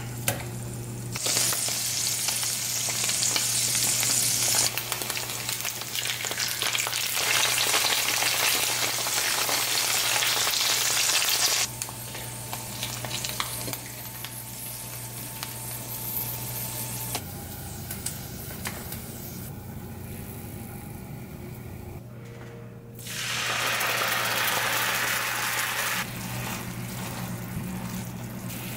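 Tofu slabs sizzling as they fry in hot oil in a nonstick frying pan, with a spatula moving the food. The sizzle is loud for about the first eleven seconds, drops suddenly to a softer frying sound, and swells again for a few seconds later on.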